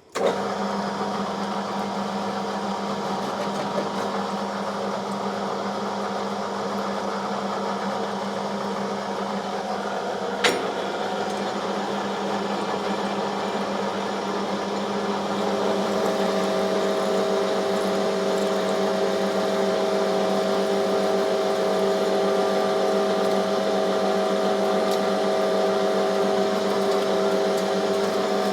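Small metal lathe running steadily while taking a facing cut on a 4140 steel shaft held in a fixed steady. There is a single sharp click about ten seconds in, and about halfway a higher steady ringing tone joins and the sound gets slightly louder.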